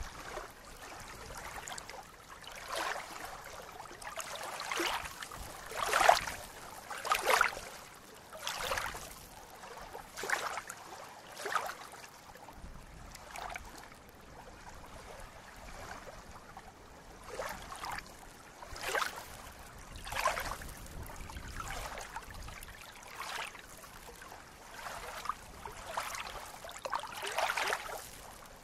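Small waves lapping at a shallow, reedy lake shore: soft, irregular splashes about once every second or so, the loudest around six and seven seconds in.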